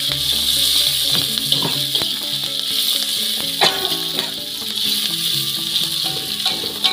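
Background music with a steady melody, over the sizzle of sliced cashew apple and shallots frying in a wok. A metal spatula scrapes and clinks against the wok a few times, loudest about three and a half seconds in.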